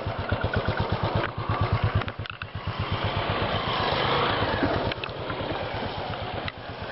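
Royal Enfield's single-cylinder engine thumping at low revs with a rapid, even beat as the bike rides past close by. From about two and a half seconds in, a louder rushing noise covers it for a couple of seconds before it settles into a quieter engine hum.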